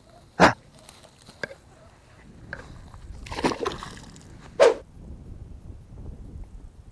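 A few short splashes and sloshes of water, with a brief exclaimed voice.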